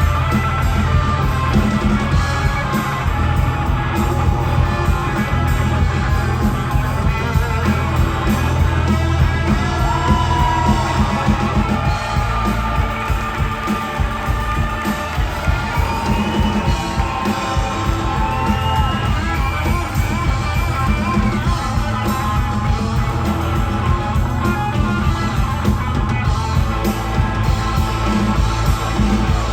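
Rock band music led by guitars over bass and drums, an instrumental stretch of the jam.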